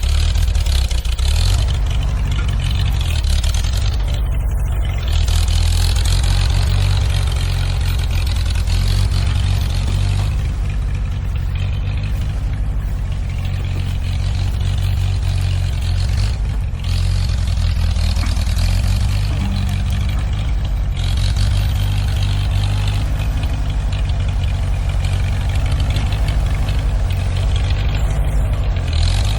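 Tractor engine running steadily while working, a loud low engine note with small rises and falls in level throughout.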